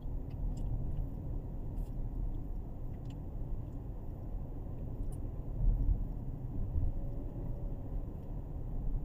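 A 2017 Kia Sorento running: a steady low rumble that swells briefly about six seconds in, with a few faint light ticks.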